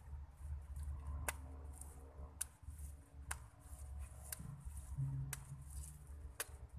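Wet brick clay being pressed and smoothed by hand into a wooden brick mould, with soft wiping and squelching, sharp ticks about once a second, and a steady low hum underneath.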